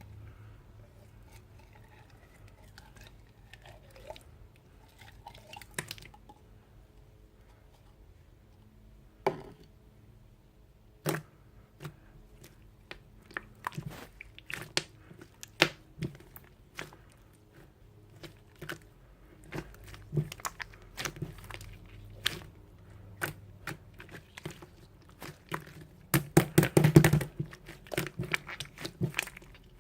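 Clear jelly slime being handled by hand, giving scattered sharp clicks and crackles. They come sparsely at first and get busier from about ten seconds in, with a dense, loud run of crackling near the end.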